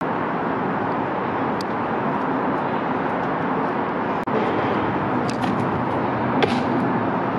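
Steady roar of freeway traffic, with a few faint taps on top.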